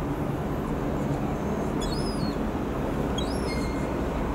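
Merseyrail Class 777 electric train running slowly into a station with a low, steady running noise. A bird gives two short high chirps, about two and three seconds in.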